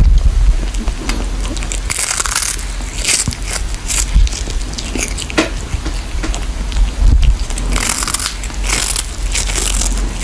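A cat chewing and crunching on a piece of dried fish held in its paws, with irregular crisp crunches that come in short runs.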